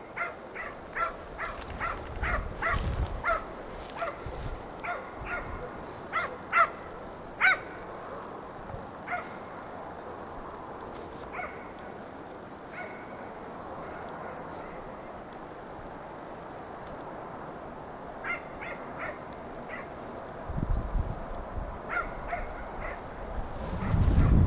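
Hunting dog barking repeatedly on a hare hunt: a run of short barks, about two or three a second, through the first several seconds, then scattered barks after that. A low rumble on the microphone comes in near the end.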